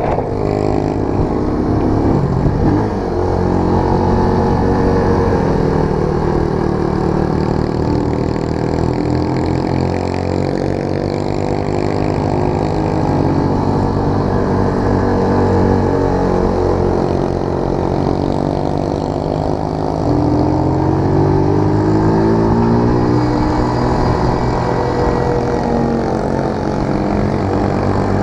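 Motorcycle engine running on the move, its pitch rising and falling with the throttle.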